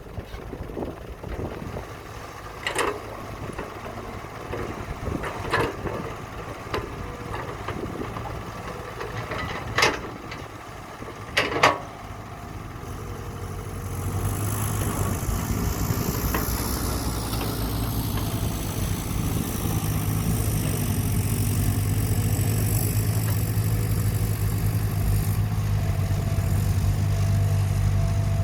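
Heavy construction machine's engine running, with several sharp metal clanks over the first twelve seconds or so. About halfway through, the engine gets louder and settles into a steady, heavier hum with a high whine on top.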